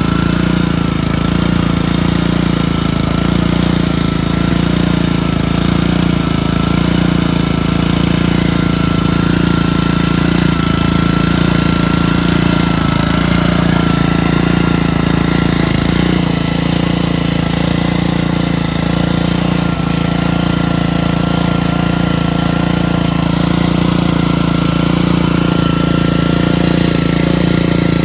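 A steady engine or motor running with a low hum and a thin, slightly wavering high whine. Its note changes a little about halfway through.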